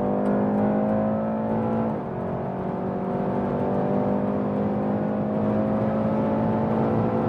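BMW 330i's two-litre turbocharged four-cylinder engine at full acceleration, heard from inside the cabin. Its note climbs steadily, dips at an upshift about two seconds in, then climbs again, over steady road and wind noise.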